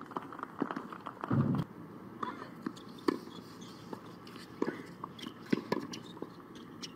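Outdoor hard tennis court: scattered sharp clicks of footsteps and shoe scuffs, and racket strikes and ball bounces as a rally is played in the second half, with a short low thump about a second and a half in.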